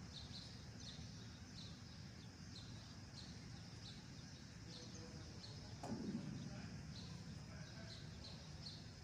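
Faint steady background noise with small birds chirping repeatedly, about twice a second. About six seconds in comes a brief, louder falling sound.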